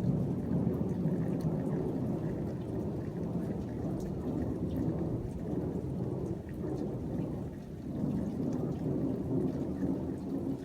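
A continuous low rumble that swells and fades slowly, dipping near the middle and rising again, with faint scattered ticks over it.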